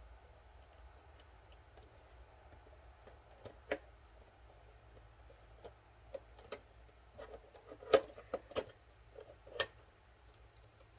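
Irregular clicks and taps of a Funko Pop cardboard box being handled and opened, with a few louder knocks, the loudest about eight seconds in.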